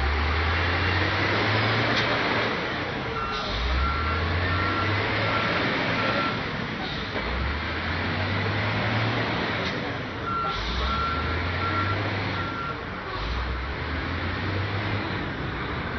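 Wheel loader's diesel engine revving up about five times as the XCMG LW500K drives and manoeuvres, each rev rising in pitch. A reversing alarm beeps about twice a second in two spells of about three seconds each.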